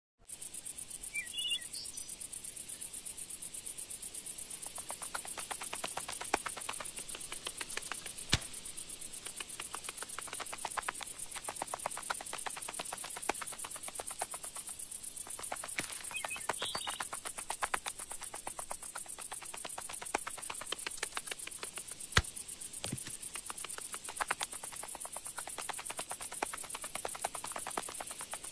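Crickets chirping in a steady, rapidly pulsing high-pitched chorus. Two brief bird chirps, one near the start and one midway, and two sharp clicks break in.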